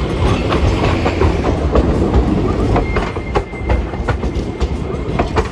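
Hiroshima Electric Railway 5100-series Green Mover Max low-floor tram passing close, its wheels and running gear rumbling. A run of sharp clacks sounds as the wheels cross the rail crossings of the track junction.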